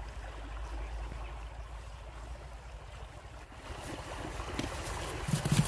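Outdoor ambience: a steady low rumble with a soft hiss, and a few dull thumps near the end.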